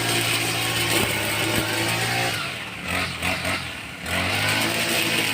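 Lawn mower's small gasoline engine running steadily. Between about two and a half and four seconds in it dips and slows slightly, then picks back up.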